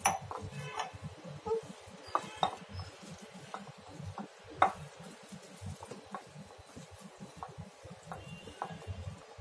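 Hands mixing cauliflower florets in a thick coating of gram-flour batter in a glass bowl: soft squelching and rustling with irregular clicks and knocks of florets and fingers against the glass. The sharpest knock comes about four and a half seconds in.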